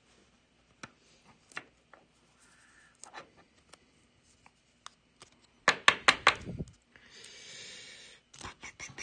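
Trading card being handled in plastic: clicks and taps as an autographed card is slid into a soft sleeve and hard plastic holder, with a quick run of four or five loud knocks a little past halfway and a second of plastic rustling near the end.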